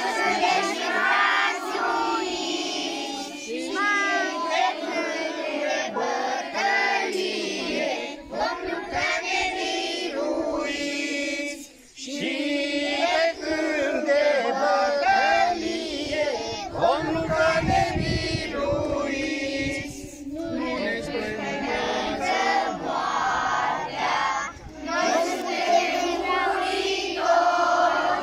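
A large group of children singing together, with a short break about twelve seconds in.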